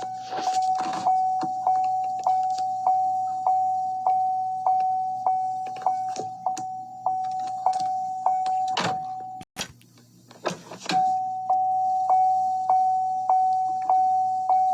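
The door chime of a 5th-generation Chevrolet Camaro, a General Motors warning chime, repeating a steady electronic ding about every 0.6 seconds. The chime cuts off at a sharp click about nine and a half seconds in, and after a few knocks starts again about a second and a half later.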